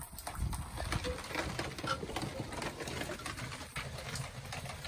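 Heavy rain falling steadily, a constant hiss dotted with the ticks of countless drops.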